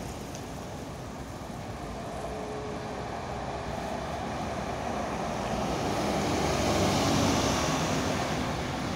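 Tri-axle double-decker bus approaching and driving past. Its engine and tyre noise builds to a peak about seven seconds in, then fades as it pulls away.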